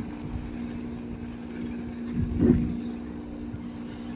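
Steady hum of a boat engine, two held tones over a low rumble, with wind buffeting the microphone about two and a half seconds in.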